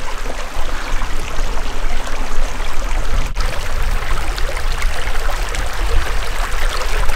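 Small rocky mountain creek running steadily over stones, with a deep low rumble underneath.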